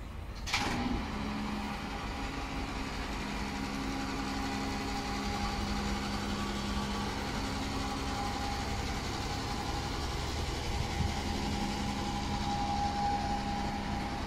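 Heavy truck's diesel engine idling with a steady hum. A sharp clunk comes about half a second in, after which the hum dips slightly in pitch and then holds.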